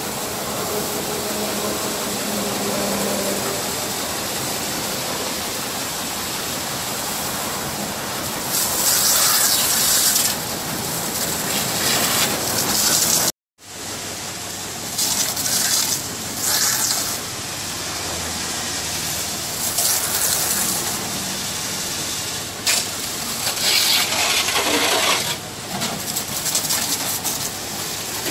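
Pressure washer water jet hissing steadily as it rinses foam off a car's bodywork, growing louder in several surges when the spray comes close. The sound cuts out for a moment about halfway through.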